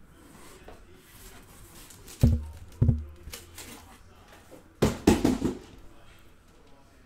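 Shrink-wrapped cardboard trading-card hobby boxes being handled: two dull thumps a little over two seconds in as boxes are set down, then a louder, longer scraping clatter of cardboard about five seconds in.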